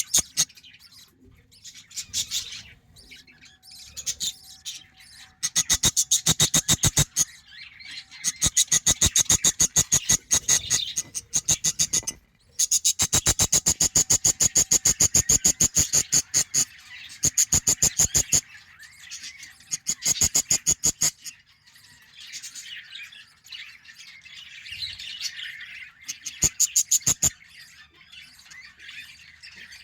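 Budgerigar chicks begging to be fed: runs of rapid, evenly repeated high cheeps lasting one to four seconds each, with softer chirping between the runs.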